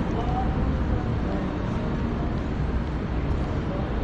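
Steady city street ambience: a low, even rumble of traffic and urban background noise, with no single sound standing out.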